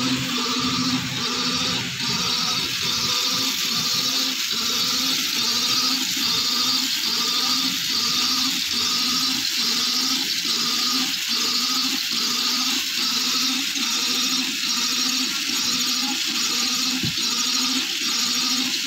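Multi-spindle Amber charkha spinning machine running, a steady rhythmic whirring clatter of its rollers and spindles.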